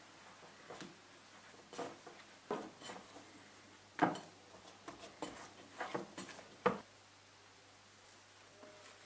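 Hands kneading Danish pastry dough in a glass mixing bowl: irregular squishes and soft knocks of the bowl on the countertop, about nine in all, the loudest about four seconds in, stopping about seven seconds in.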